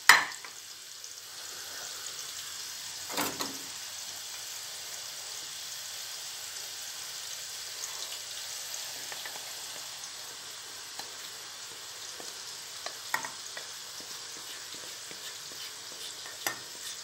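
Hot oil with mint sizzling steadily in a pan that has just come off the heat. A few sharp clanks of metal cookware break in.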